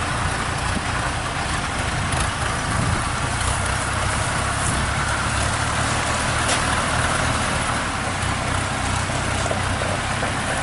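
Diesel engines of two tracked rice combine harvesters running steadily as the machines crawl along loaded with sacks of paddy: a low, even engine drone under a broad mechanical noise.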